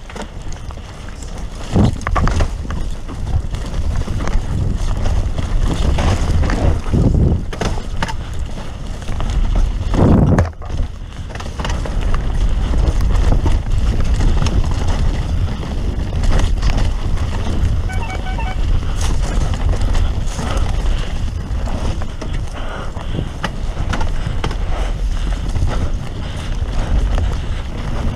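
Mountain bike riding fast down a dirt singletrack: continuous wind rumble on the camera's microphone over tyre noise on the dirt, with repeated knocks and rattles from the bike over bumps and a louder knock about ten seconds in.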